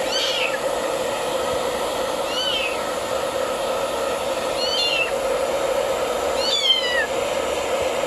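A cat meowing four times, short high meows falling in pitch about two seconds apart, over a hair dryer blowing steadily.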